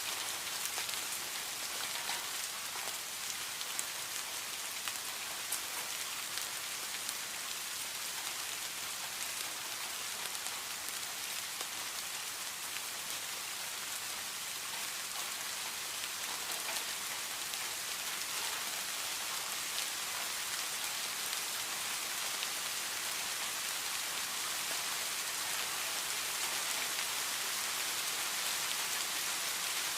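Steady heavy rain falling, an even hiss with fine pattering drops.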